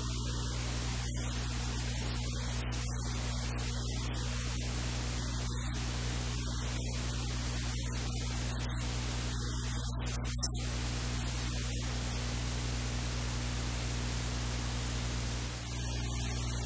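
Steady hiss of electrical noise with a low mains hum underneath, and no other distinct sound.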